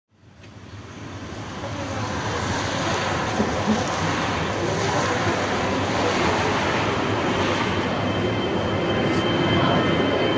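Jet airliner engine noise across the airfield: a steady roar that fades in over the first couple of seconds, with a thin steady whine joining about eight seconds in.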